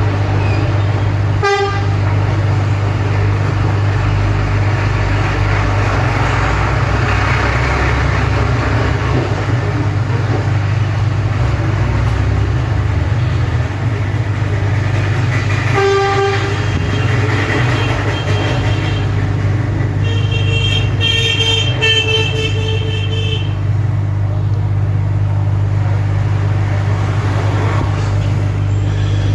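Street traffic with a steady low hum, and vehicle horns honking: a short toot about halfway through and a longer honk lasting about three seconds around two-thirds through.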